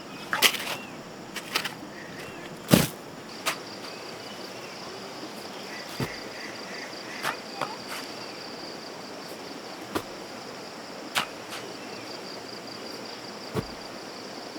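Insects keep up a steady high buzz that sets in a few seconds in. Sharp knocks and taps come at irregular intervals, about ten of them.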